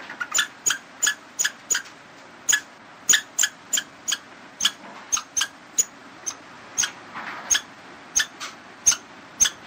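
Squirrel giving a long run of short, sharp high chirps, about two a second at uneven spacing, over a faint steady hiss.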